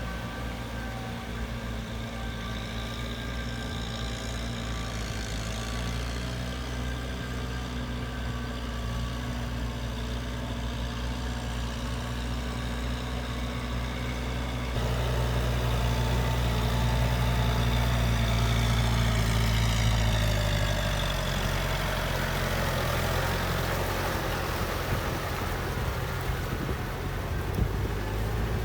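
Tractor diesel engine running steadily under way, getting louder about halfway through and then settling to a slightly lower pitch.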